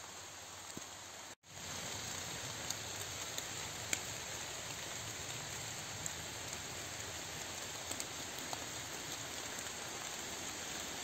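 Steady rain falling, with scattered single drops ticking. The sound drops out for a moment about a second and a half in, then carries on slightly louder.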